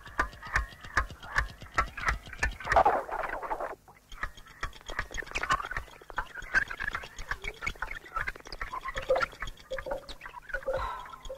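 Sound-effects soundtrack of an experimental animated short: a rapid run of clicks and ticks, with busy pitched sounds over it for the first few seconds. There is a brief drop near four seconds, and short low beeps join the ticking near the end.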